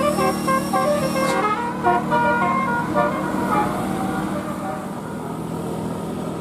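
Multi-tone 'telolet' bus horn playing a quick melody of short stepping notes, which stops about three and a half seconds in, leaving the bus engine and traffic running.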